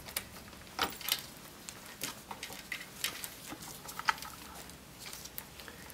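Scattered light metallic clicks and rattles of an electric bike's roller drive chain being handled and worked onto its sprockets by hand.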